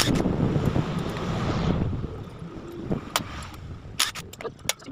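A rushing noise for about two seconds, then a few sharp clicks from small metal engine parts and tools being handled over a steel parts tray.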